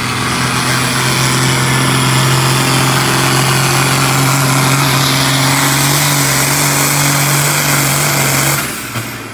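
John Deere farm tractor's diesel engine running flat out under load as it drags a pulling sled, a steady loud drone. It drops away sharply near the end as the pull ends and the tractor comes off the throttle.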